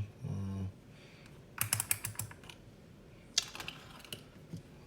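Quick clicks of hard plastic in two short clusters about a second and a half apart, from a handheld multimeter and its test leads being handled. A brief low voiced hum comes just after the start.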